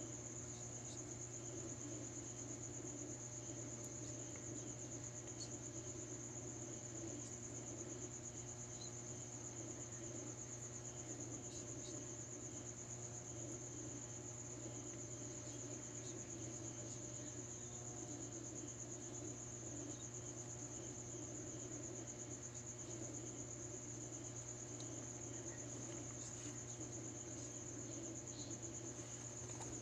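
Crickets trilling in one continuous high-pitched drone, faint, with a steady low hum underneath.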